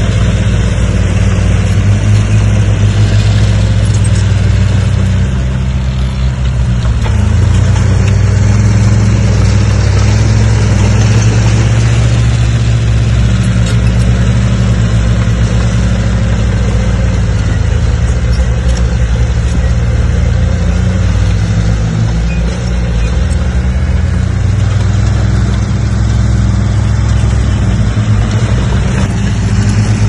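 Bulldozer's diesel engine running steadily under load while it pushes dirt, a loud, deep engine drone that eases briefly about six seconds in and again near twenty-two seconds.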